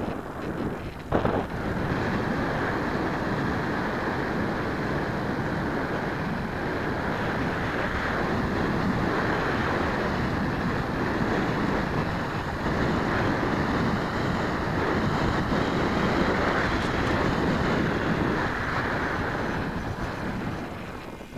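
Airflow rushing over a small onboard camera's microphone on a radio-controlled model airplane in flight, a steady loud noise with a sharp knock about a second in. The rushing dies down near the end as the plane slows to land.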